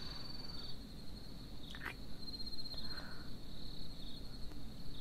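Crickets chirping steadily, a continuous trilling night ambience, with one short soft sound about two seconds in.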